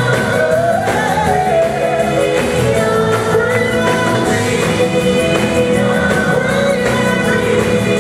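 Live gospel music: a lead singer with backing vocalists over a band of drums, bass guitar and keyboards.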